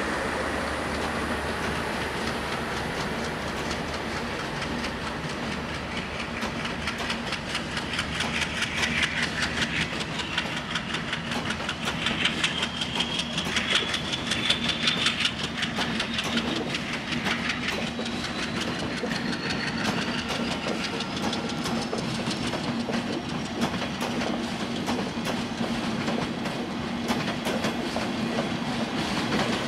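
PT-INKA passenger coaches rolling past on broad-gauge track, their wheels clattering over the rail joints in a quickening clickety-clack as the departing train gathers speed. A faint rising whine runs through the middle.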